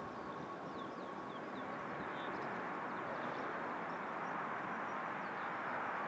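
Blue Islands ATR 72-500's Pratt & Whitney PW127 turboprops and propellers running as the aircraft rolls out on the runway after touchdown: a steady rushing drone that grows slightly louder over the last seconds, with a faint thin tone that fades out about a second in.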